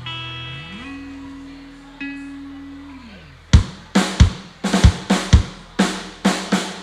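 A live rock trio opens a song. Ringing electric guitar and bass notes come first, with a low note sliding up in pitch and later back down. About halfway through, the drum kit comes in with a steady beat of kick and snare.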